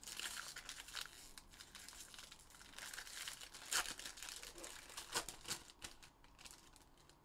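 Foil wrapper of a trading-card pack crinkling as it is handled and pulled at, with a few sharper crackles about four and five seconds in.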